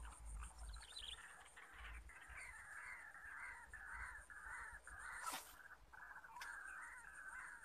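Faint, harsh caw-like bird calls repeating about three times a second, over a steady high-pitched insect whine. A single sharp click about five seconds in.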